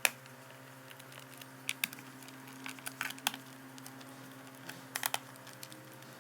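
Scattered small clicks and taps, a few at a time, of a precision screwdriver working the captive screws on a laptop's bottom cover, over a faint steady hum.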